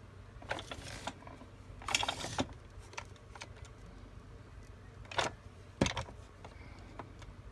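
Plastic clicks and short rattles of a toy motorcycle being handled, a few separate knocks with a louder rattle about two seconds in, over a steady low hum.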